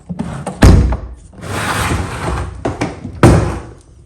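Husky Build Out rolling tool box being handled: two loud thuds, one near the start and one about three seconds in, with scraping and rubbing of the box between them.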